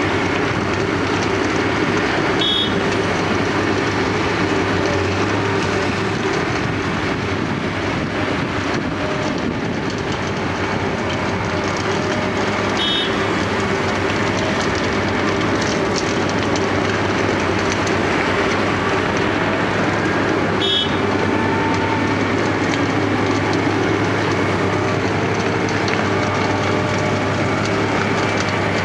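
Wirtgen W210 cold milling machine running steadily, its drum grinding off the asphalt surface with its 680-horsepower engine under load, a continuous loud rumble and clatter. Three short high beeps sound over it, several seconds apart.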